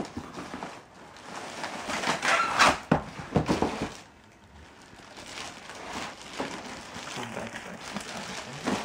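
Cardboard box and plastic wrapping being handled and opened: rustling and crinkling of plastic packaging against cardboard, loudest in a run of bursts about two to four seconds in, then softer.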